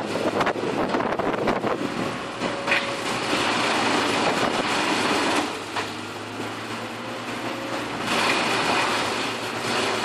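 Heavy machinery running: an excavator at work, a steady engine din that drops for a couple of seconds past the middle and swells again near the end.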